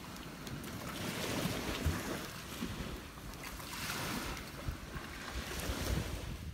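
Wood campfire burning, with irregular sharp crackles and pops over a steady rushing hiss.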